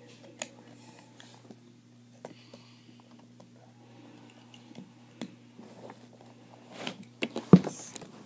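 Small clicks and rustles of hand craft work, bending and handling small parts, with a few louder clicks and one sharp knock near the end.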